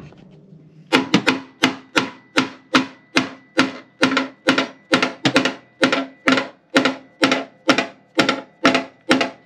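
Ball-peen hammer striking the thick steel spring pocket of a 2006 Mustang GT's inner wheel well, hammering out a dent that the coil spring pressed into it. The blows start about a second in and come steadily at about two a second, each one ringing.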